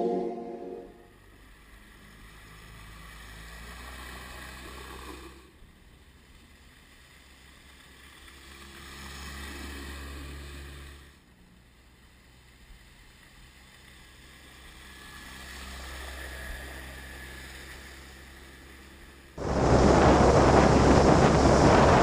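Faint, slowly swelling background for most of the stretch, then about nineteen seconds in a sudden loud, steady rush of wind on the microphone and water noise from a boat running up a mangrove channel.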